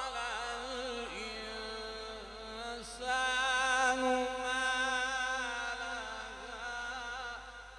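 A male qari reciting the Quran in the melodic mujawwad style, drawing out long ornamented notes. A brief break about three seconds in, then one long held note that fades out near the end.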